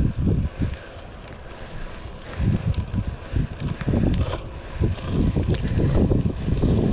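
Wind buffeting the microphone of a chest-mounted GoPro on a moving road bike, in irregular low gusts that grow louder about two and a half seconds in, over the sound of the tyres rolling on asphalt.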